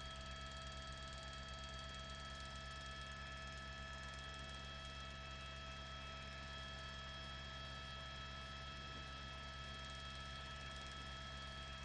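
Steady electrical hum with several faint, even high whines that do not change.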